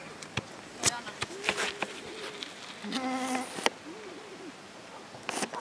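Soccer ball being kicked on artificial turf: a few sharp knocks in the first second or so, with faint children's voices. About three seconds in there is a short, steady buzz lasting under a second.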